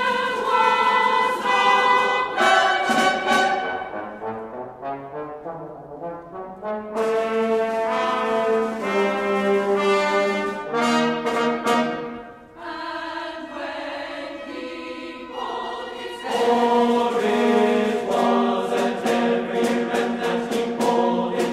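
Choir and orchestra performing, holding sustained chords with brass prominent. The music drops back about twelve seconds in and swells again about four seconds later.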